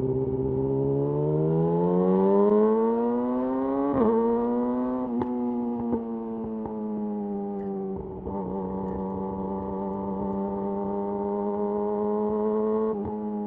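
Yamaha YZF-R6's inline-four running through a de-catted Akrapovic slip-on exhaust. The revs climb for about four seconds, then settle and hold nearly steady at cruising speed, with a few sharp clicks along the way.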